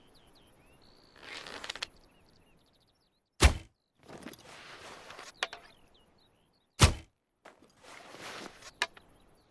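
Recurve bow shooting arrows: two sharp, loud thunks a little over three seconds apart, with softer rustling noises between them. Birds chirp faintly in the background.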